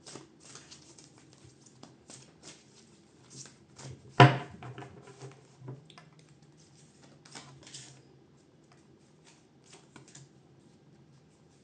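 Tarot cards being shuffled and handled: a run of quick clicks and rustles, with one louder knock on the table about four seconds in, thinning to a few faint taps in the last seconds.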